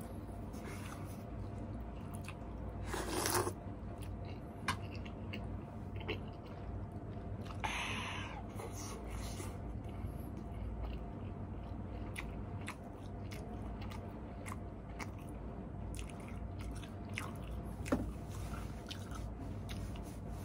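Close-miked chewing of instant noodles and fish balls, with small wet mouth clicks throughout and two louder breathy sounds, about three and eight seconds in, over a steady low hum.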